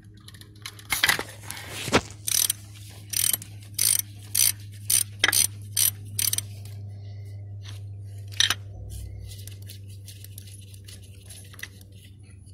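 Hand ratchet clicking in about nine short bursts over five seconds, then once more a couple of seconds later, as it turns a 27 mm socket to unscrew an engine oil pressure sensor.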